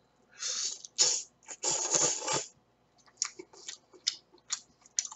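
A person slurping ramen noodles off chopsticks in three long sucks over the first two and a half seconds, then chewing with a string of short smacks and clicks.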